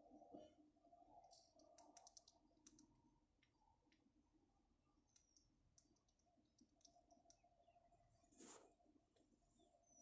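Near silence with faint, scattered clicks and ticks over a faint low hum, and one soft knock about eight and a half seconds in.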